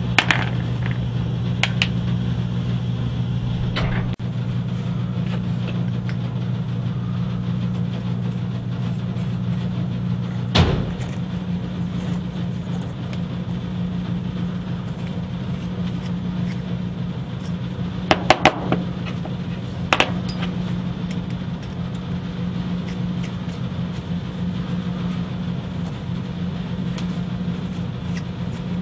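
Steady low hum with a handful of sharp clicks of small brass screws, nuts and a screwdriver being handled on a workbench cutting mat. The deeper part of the hum stops about ten seconds in.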